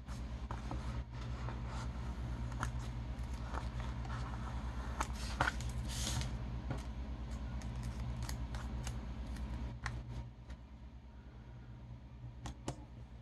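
Paper handling: a planner page and sticker sheets being picked up, moved and smoothed by hand, giving scattered light rustles and small taps, with one louder paper swish about six seconds in. A steady low hum runs underneath.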